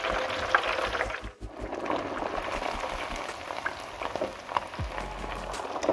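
Marinated pomfret frying in hot oil in a deep fryer basket: a steady, crackling sizzle of bubbling oil, with a brief break about a second and a half in.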